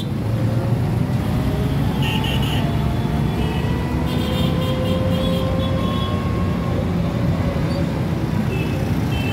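Busy city street traffic: a steady mix of engine and tyre noise, with a few brief high tones now and then.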